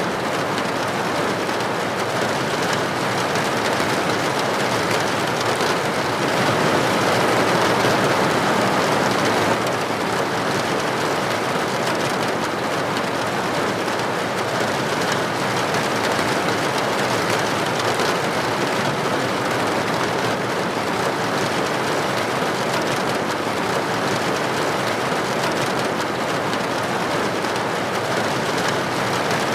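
Steady rain falling as an even, dense hiss. It grows a little louder for a few seconds and drops back abruptly about a third of the way in.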